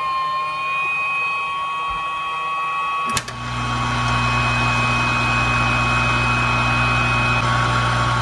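Hot air rework equipment soldering a BGA CPU chip onto a circuit board: a click about three seconds in as it switches on, then a steady blowing noise with a low hum under a faint whine.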